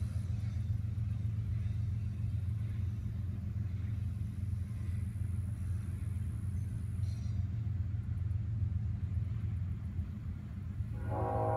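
Double-stack intermodal freight cars rolling past on the rails: a steady, low rumble. Music comes in near the end.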